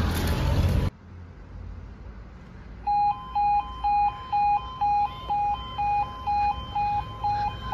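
UK level crossing yodel alarm starting up about three seconds in, two tones alternating roughly twice a second, as the amber light comes on: the warning that a train is approaching and the barriers are about to lower. Before it, a loud rush of noise cuts off about a second in.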